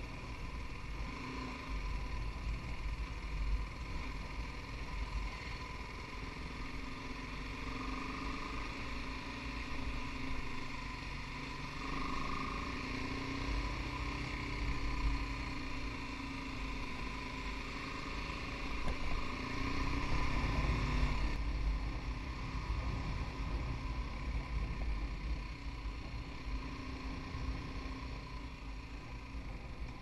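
BMW G 310 GS's single-cylinder engine running while riding, its revs rising and falling, heaviest about two-thirds of the way through, over a steady low rumble.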